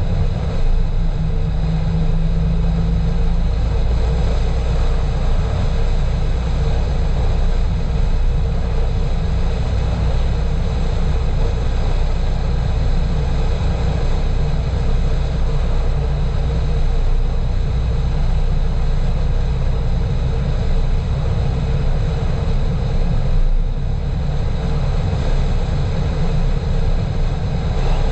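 Steady low rumble of a car driving at low speed, engine and tyre noise heard from inside the cabin.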